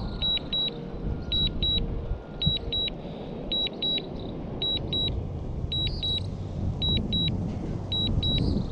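DJI Mini 2 remote controller beeping in short high double beeps, about one pair a second, the alert that return-to-home is under way. A low rumbling noise runs underneath.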